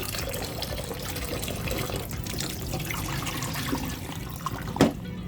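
Water running from a tap and splashing, with one sharp knock near the end.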